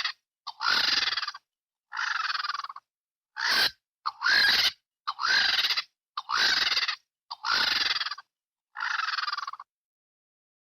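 Velociraptor sound-effect calls: a series of about eight short, raspy calls, each under a second long and about a second apart, several opening with a rising glide, with dead silence between them.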